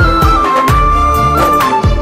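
Background music: a held, sustained melody line stepping between notes, over a drum beat and bass.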